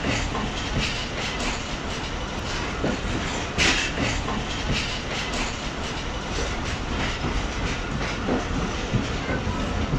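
Passenger coaches of a departing train rolling past, their wheels clacking over rail joints in repeated knocks over a steady rumble.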